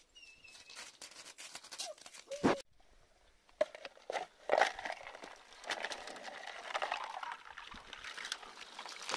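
A short animal cry, then a plastic scoop cracking the thin ice on a water barrel: sharp cracks of breaking ice, followed by water sloshing and ice shards crunching as the scoop dips water out.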